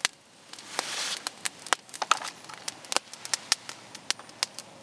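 Wood campfire crackling, with frequent sharp irregular pops, and a brief soft rustle about a second in.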